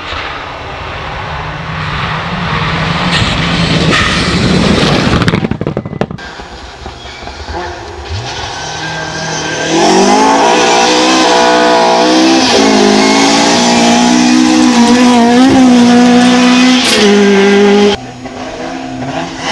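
Rally cars at full throttle on gravel stages, in short cut-together clips. First a car's noise swells over a few seconds as it approaches. Then, from about ten seconds in, a Ford Escort rally car's engine revs hard close by, its pitch rising and dipping through gear changes as it slides past, cut off abruptly near the end.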